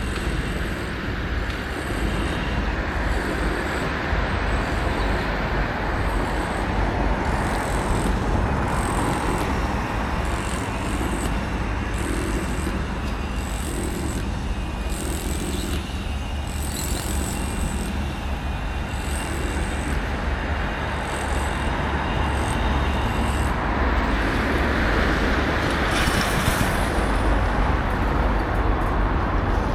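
Steady road traffic noise: vehicles passing on a busy road with a continuous low rumble, and a louder hissing pass near the end.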